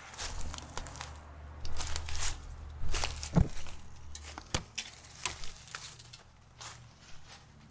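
Footsteps crunching through dry fallen leaves and twigs: irregular crackles, with two sharper cracks about halfway through. A low, steady rumble lies underneath until shortly before the end.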